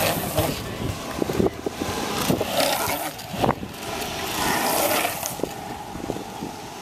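Longboard wheels rolling over rough asphalt: an uneven road roar that swells and fades several times, with scattered clicks and knocks from the board.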